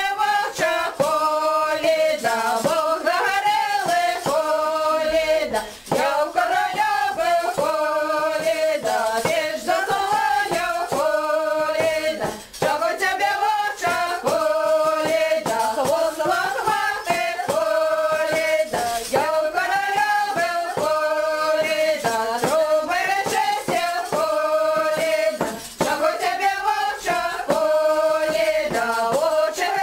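Several voices singing a Belarusian folk song together in long phrases. There are short breaks about six, twelve and twenty-six seconds in.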